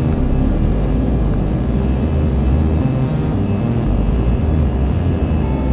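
Airbus A320 cabin noise from a window seat over the wing: a steady jet-engine drone and low rumble while the airliner climbs out after takeoff.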